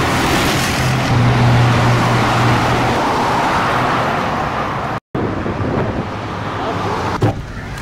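Highway traffic: cars passing close at speed, with a steady engine hum from about one to three seconds in. The sound cuts out briefly about five seconds in, after which the traffic is quieter, with a sharp knock near the end.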